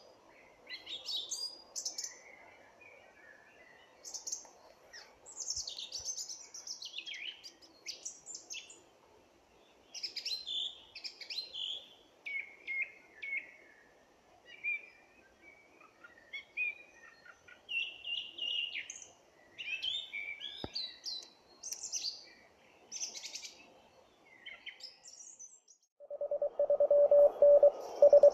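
Several birds singing, with many short chirps and whistles over a faint hiss. Near the end a homemade 1 W transceiver starts sounding Morse code: a single steady tone keyed on and off in a quick rhythm, louder than the birds.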